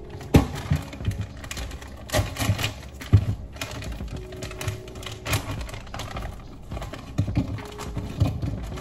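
Frozen banana slices poured into a blender jar, clattering as irregular clicks and knocks, the loudest just after the start and about three seconds in.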